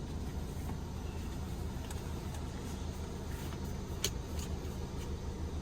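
Steady low hum, with a single sharp click about four seconds in.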